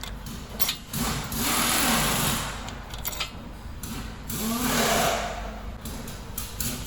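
A handheld power tool's motor run in two bursts of about a second each, its pitch rising and falling, most likely driving in the brake caliper bolts; a few clicks before the first burst.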